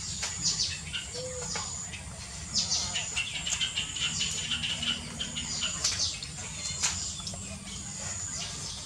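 Small birds chirping: many quick, high, falling chirps, scattered throughout, over a steady low hum.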